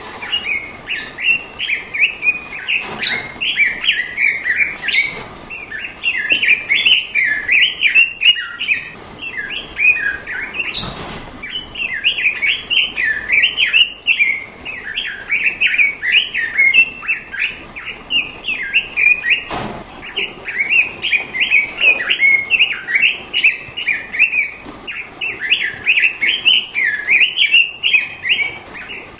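A songbird singing a fast, continuous twittering song of quick, high chirps, with a few short pauses and a couple of brief clicks.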